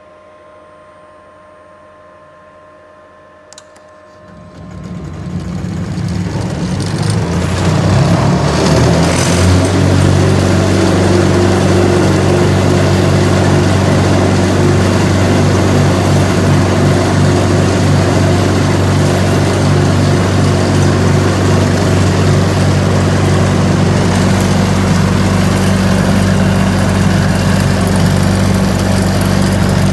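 Electric motor driving a compressor, started from a variable speed drive set to 50 Hz: a single click about three and a half seconds in, then the motor ramps up over about five seconds, rising in pitch, and runs steadily at full speed, around 2,860 rpm.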